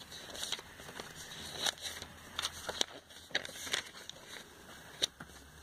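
Glossy catalog pages being turned quickly by hand: short, irregular paper swishes and rustles, roughly two a second.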